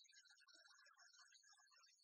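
Near silence, with only faint scattered high tones and no engine sound.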